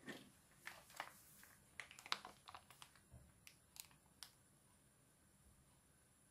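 Faint crinkling and clicking of a soft plastic mayonnaise pouch being picked up and handled, a few light taps at a time; the sounds die away about four seconds in as the mayonnaise is squeezed out quietly.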